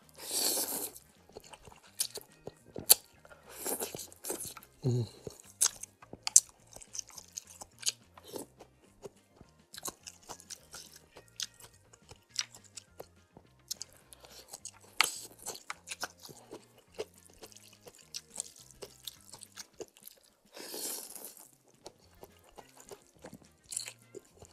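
Close-miked eating of spicy instant noodle soup: wet chewing and lip-smacking clicks throughout, broken by about four slurps of noodles and broth, each lasting about a second. Faint background music underneath.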